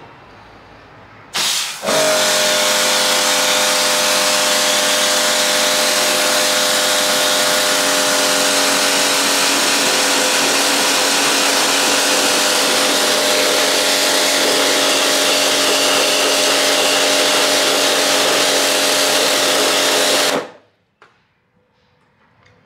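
Kärcher electric pressure washer: a short burst about a second in, then the motor-pump runs steadily with the hiss of its water jet on the terrace tiles, and cuts off suddenly a couple of seconds before the end.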